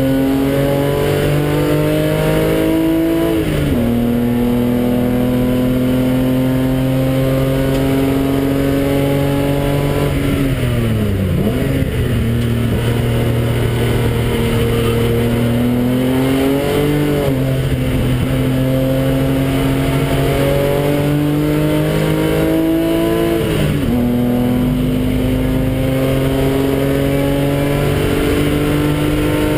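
BMW car engine heard from inside the cabin, pulling hard on a race track: the revs climb and fall back sharply at upshifts about 3.5 seconds in and again near the end. Around 10 seconds in the revs drop away for braking and downshifting into a corner, then climb again through the gears.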